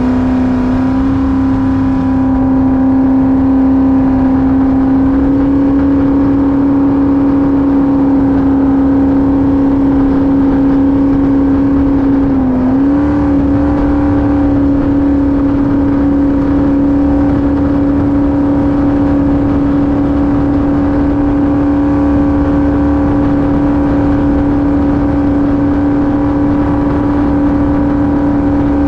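Jet boat's LS V8 engine running steadily at cruise, one even engine note that rises slightly in pitch early on, dips briefly and recovers about twelve seconds in, then holds.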